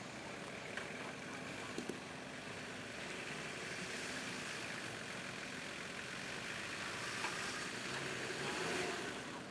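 Four-wheel-drive competition vehicle's engine running steadily, with a couple of short clicks about two seconds in and a slight swell in level near the end.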